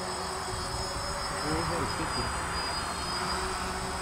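DJI Phantom quadcopter's motors and propellers buzzing steadily as it hovers and flies close by, with a steady high whine over the rotor noise.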